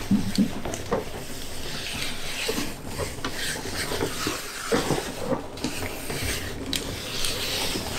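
Plastic sheeting crinkling and rustling with irregular crackles as it is pulled and gathered away from under a countertop edge.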